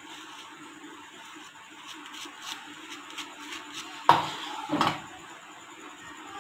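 Table knife spreading mayonnaise on a slice of toast, with faint light scraping and ticking, then two dull knocks, about four and five seconds in, against the board. A steady low hum sits underneath.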